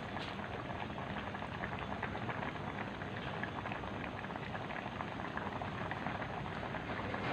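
Turmeric broth with pineapple chunks and boiled eggs bubbling at a hard boil in an aluminium pan: a steady, dense bubbling made of many small pops.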